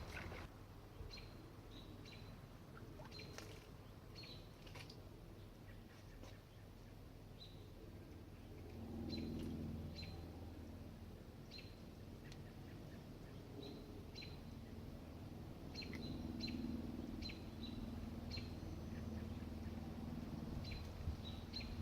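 A small bird chirping over and over, short high chirps every half second to a second. A faint low rumble swells twice underneath.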